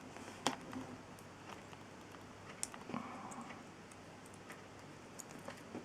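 A few faint, scattered light clicks and taps of plastic model kit parts being handled and fitted together.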